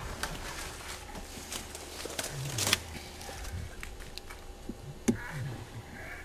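Rustling and irregular cracks of someone moving on foot through dry leafy forest undergrowth, with a louder snap about two-thirds of the way in and another near the end.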